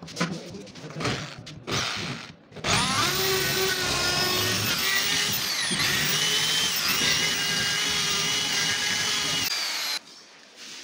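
Power drill boring through a wooden cupboard door: a few short bursts in the first couple of seconds, then a steady run of about seven seconds whose whine shifts in pitch as the bit bites. It stops about a second before the end.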